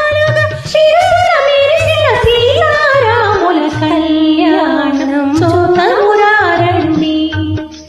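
A woman singing a Telugu devotional song in a Carnatic style, her voice sliding and wavering between notes before holding one long note through most of the second half. A steady low drum beat accompanies her.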